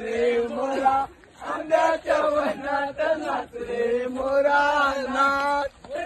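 Men's voices chanting a sung, melodic phrase, with long held notes broken by short pauses, including one about a second in and one near the end.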